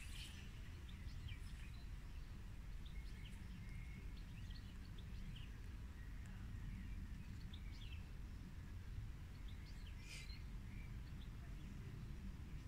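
Outdoor ambience: scattered short bird chirps over a steady low background rumble.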